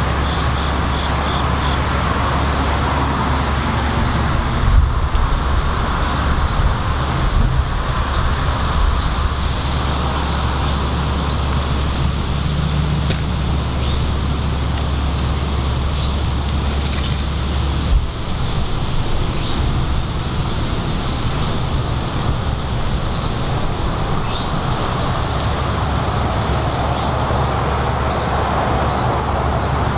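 Steady low rumble of road traffic under a chorus of insects: a continuous high drone and short high chirps repeating about twice a second. The rumble eases about eighteen seconds in and comes back later.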